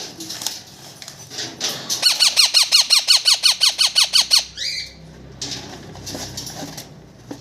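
Baby ring-necked parakeet chick calling: a rapid run of about twenty short squeaks, roughly eight a second, each falling in pitch. It starts about two seconds in, lasts just over two seconds, and ends with one rising call.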